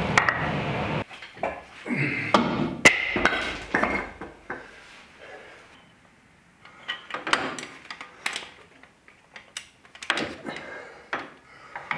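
Hand tools and metal parts clanking and knocking against an engine block and its mounts: irregular sharp knocks and clinks, some with a short metallic ring, with quieter gaps between. A steady rushing noise cuts off abruptly about a second in.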